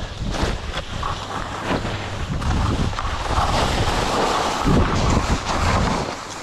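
Wind rushing over a skier's camera microphone, with skis scraping over snow.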